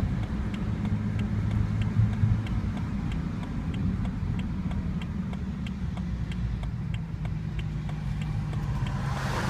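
2008 BMW 335xi's twin-turbo N54 straight-six and road noise making a steady low drone as the car drives on. A faint, regular ticking runs at about three a second.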